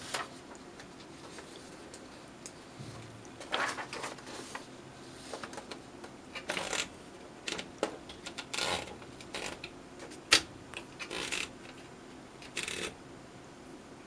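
Paper being fed into a Sears Best Corrector electric typewriter: the sheet rustles and slides into the platen in several short goes, with scattered clicks from the carriage, the loudest a sharp click about ten seconds in.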